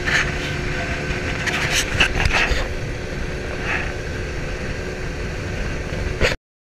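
Outboard motor running steadily as an aluminum jon boat travels across the water, with rushing wind and water noise and a few brief knocks about two seconds in. The sound cuts off suddenly near the end.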